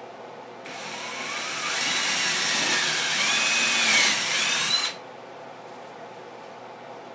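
Handheld power drill running into a wooden guitar body: the motor whine starts under a second in, climbs and wavers in pitch for about four seconds, then cuts off suddenly.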